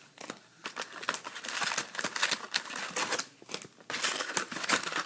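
Crinkling and rustling of trading-card packaging being handled and opened, a dense run of small crackles and clicks.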